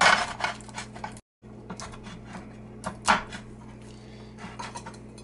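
Table knife cutting through set chocolate and clicking and scraping against a ceramic plate, in scattered short strokes, the loudest about three seconds in. A low steady hum runs underneath.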